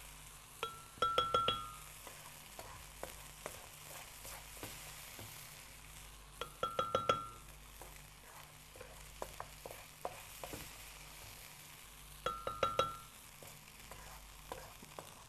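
Metal spoon scraping cooked tomato mixture out of a wok and tapping it off on the rim of a blender jar. Three quick clusters of ringing clinks about six seconds apart, with soft scraping and small clicks in between.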